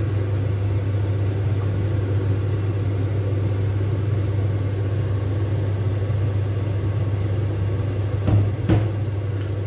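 A steady low mechanical hum from the kitchen while squid is stir-fried in a wok. Shortly before the end a spatula knocks twice against the pan.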